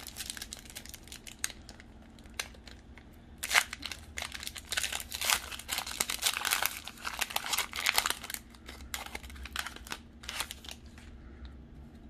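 Foil wrapper of a Pokémon card booster pack crinkling and tearing as it is worked open by hand, with a sharp crackle about three and a half seconds in and the densest crinkling in the middle, thinning near the end.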